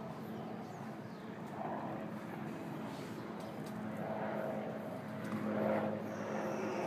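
A steady mechanical hum with a constant low droning tone, growing a little louder about five and a half seconds in.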